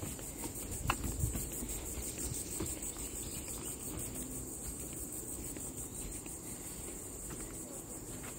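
Steady, high-pitched pulsing trill of an insect chorus in the forest. A few soft footfalls on a wooden boardwalk sound in the first second and a half.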